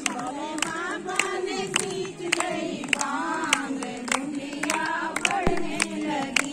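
A group of women singing together, clapping along about two to three times a second.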